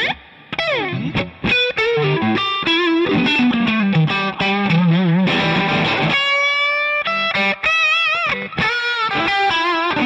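Fender Custom Shop Stratocaster electric guitar played through an amp: a single-note lead solo with string bends and vibrato. About six seconds in, one note is bent and held for nearly a second.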